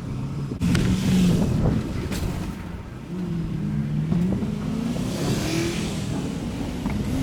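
Plow truck's engine revving up and down, its pitch climbing for a couple of seconds near the middle, with a couple of knocks early on.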